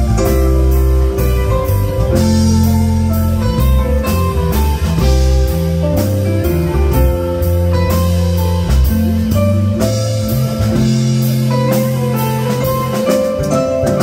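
Live band playing an instrumental passage: guitar lines over a bass guitar and a drum kit keeping a steady beat.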